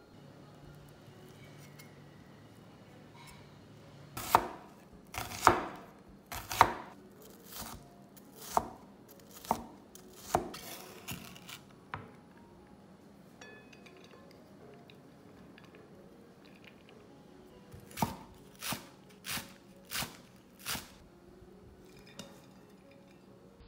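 Knife chopping vegetables on a wooden cutting board: a run of about a dozen uneven strikes, then after a pause five evenly spaced chops a little over half a second apart.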